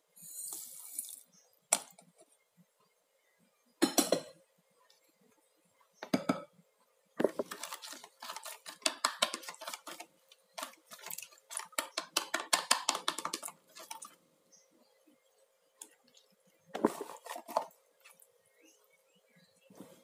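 Kitchen utensils clinking and scraping against bowls and dishes: scattered single knocks, and a long run of quick clattering in the middle.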